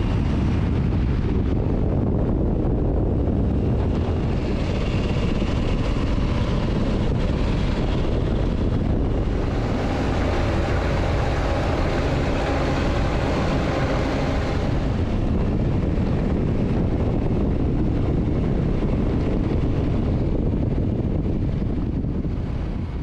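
KTM motorcycle being ridden at speed: heavy wind rush over the microphone with the engine running underneath, steady throughout.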